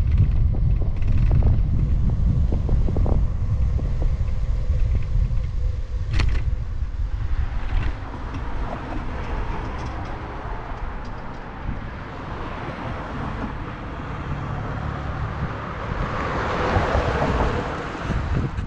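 Wind buffeting the microphone with a steady low road rumble as the camera moves along the street. Near the end a wider traffic noise swells up, as from a passing car.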